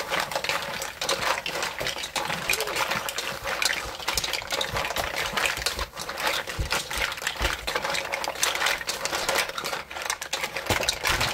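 Mussels in their shells being stirred in a pot with a wooden spatula: a dense, continuous clatter of shells clacking against each other and the pot, with a few deeper knocks in the middle.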